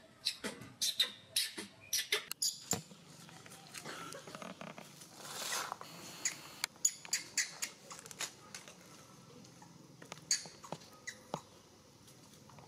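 Baby macaque giving short, high squeaks in quick runs while it is handled and massaged, with a rustle of handling on a towel in the middle.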